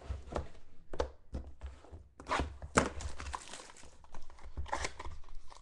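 Hands unpacking a sealed box of trading cards: cardboard and clear plastic wrapping rustling and crinkling, with a quick run of sharp clicks and knocks, the loudest about halfway through.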